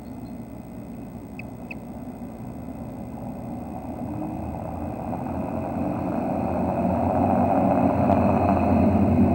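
Engine noise of a passing motor vehicle, a steady low rumble that grows louder throughout as it approaches.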